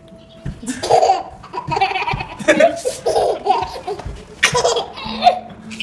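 Hearty laughter in repeated bursts, with a few dull low thumps mixed in.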